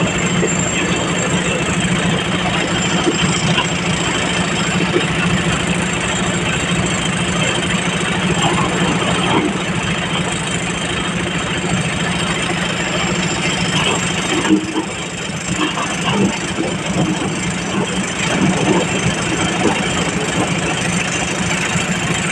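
Heavy machinery engine running steadily, with a constant low hum and some irregular clatter; the level dips briefly about two thirds of the way through.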